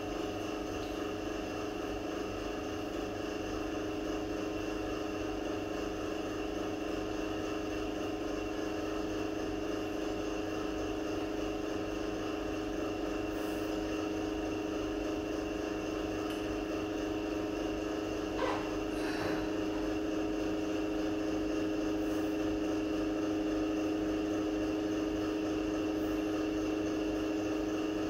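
A steady, unchanging machine hum, with a brief faint click about two-thirds of the way through.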